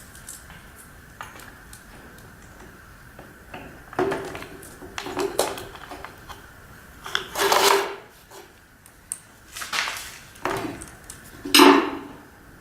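Metal clinking and rattling in several short bursts, starting about four seconds in and loudest near the end: a Makita chainsaw's chain and guide bar being handled during a tool-free chain change.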